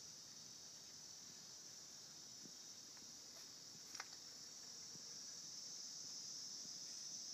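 Near silence with a faint, steady high-pitched background hiss and one soft click about four seconds in.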